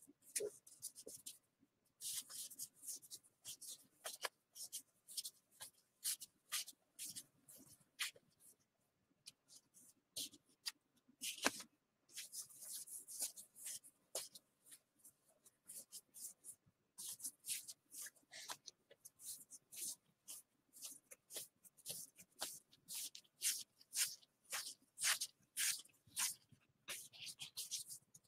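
Baseball trading cards being thumbed through one at a time in the hands: a quick, uneven run of light papery flicks and slides as each card is pushed off the stack, pausing briefly twice.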